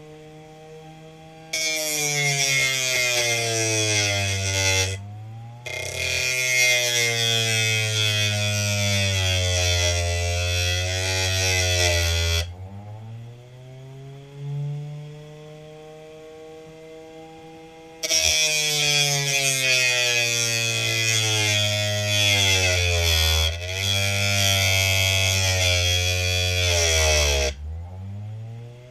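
A homemade grinder built from a hard-drive motor spins a sandpaper disc while a rock is pressed against it, in three long spells of gritty grinding hiss. The motor's whine sags in pitch under the load and rises again, and it runs quieter between spells.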